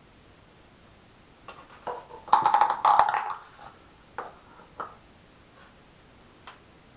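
Plastic hair sectioning clips being unclipped and handled: scattered clicks, then a loud clatter of knocks about two seconds in, then a few single clicks.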